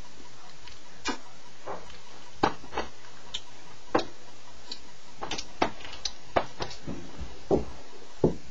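Irregular clicks and knocks, about a dozen, from someone moving about and handling things close to the microphone, over a steady hiss; a few duller thumps come near the end, the loudest just before it ends.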